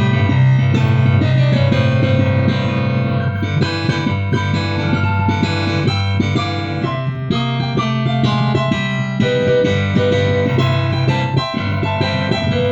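Instrumental music played on a keyboard with a piano-like sound, over sustained low bass notes.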